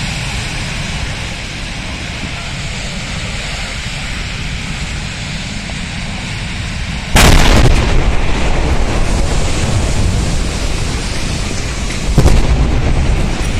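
Two gas cylinder explosions in a fire: a loud boom about seven seconds in that dies away slowly in a long rumble, then a second boom about five seconds later. A steady noise of the blaze runs underneath.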